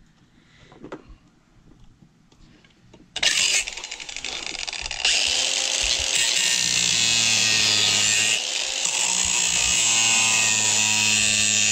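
Cordless angle grinder spinning up about three seconds in, then cutting off the protruding steel screw ends flush with a speaker mounting ring, a steady motor whine under a loud grinding hiss that eases briefly near eight seconds.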